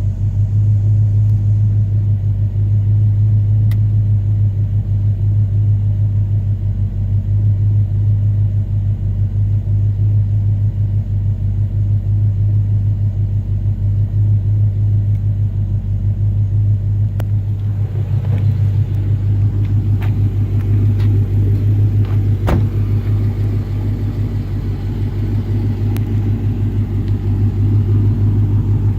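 Dodge Magnum SRT8's 6.1-litre Hemi V8 idling with a steady, pulsing low rumble, at an idle the owner reports as misfiring. About two-thirds of the way through the rumble grows fuller, with a few sharp ticks.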